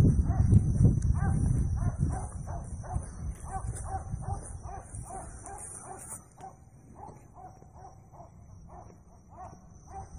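Short, high, yelping animal calls repeating about two or three a second, with wind rumbling on the microphone for the first few seconds. A steady high whine runs underneath.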